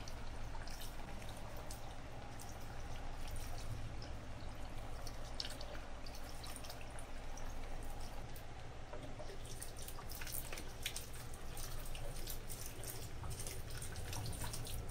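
A thin stream of diluted liquid fertilizer trickles from a watering spout on a plastic bottle into potting soil, with small drips and splashes that grow more frequent in the second half, over a faint low hum.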